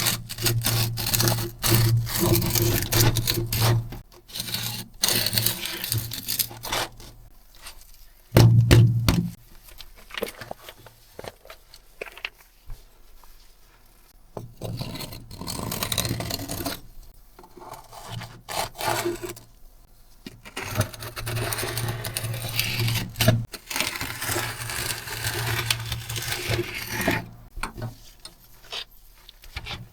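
Scrubbing and scraping over a dirty computer keyboard: dense, scratchy rubbing in stretches, with short pauses and a few sharp ticks.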